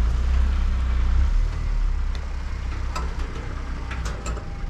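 Two-stroke moped engine with a Polini cylinder and Boost cylinder head running, heard as a steady low rumble that is louder for the first second or so and then eases, with a few faint clicks.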